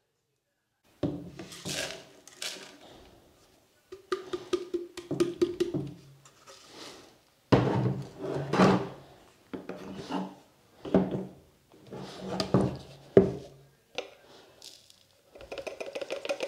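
Plastic kitchenware being handled on a counter: a blender cup and a plastic funnel knocked, rubbed and tapped while celery powder is poured into a glass spice jar. It starts about a second in, with a few sharp taps among the rubbing.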